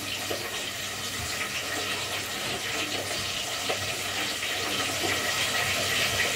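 Food frying in hot oil in a pan on the stove, sizzling steadily with a few small pops.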